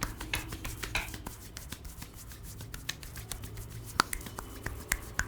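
Scattered sharp snaps and clicks from a barber's hands during a head massage, the strongest about four seconds in, over a low steady hum.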